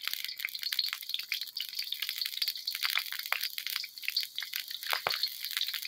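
Chopped garlic sizzling in hot oil in an iron karahi: a steady, dense crackle of small pops and spits.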